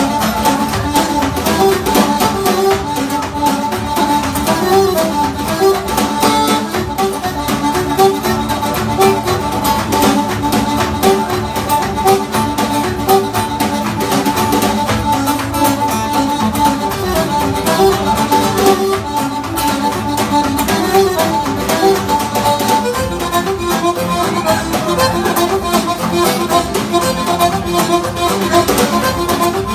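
Live Irish traditional music: a button accordion playing a quick tune in a rapid run of short notes, with acoustic guitar strumming and a snare drum keeping time.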